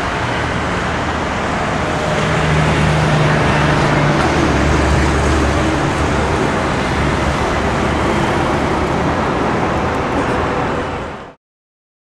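Busy road traffic: a steady wash of cars, buses and auto-rickshaws passing, with a deeper engine hum swelling a few seconds in. It cuts off suddenly near the end.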